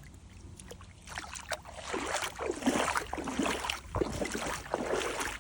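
Water swishing and splashing around legs wading in the shallows of a lake, in a series of uneven surges that begin about a second in.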